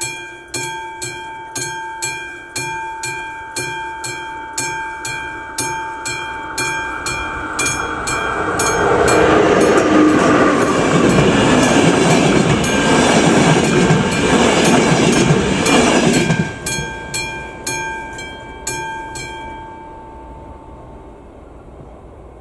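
Classic level-crossing bell ringing about twice a second while a passenger train rushes past, its noise covering the bell for about eight seconds in the middle. After the train has gone the bell rings on and then stops about twenty seconds in, as the crossing clears.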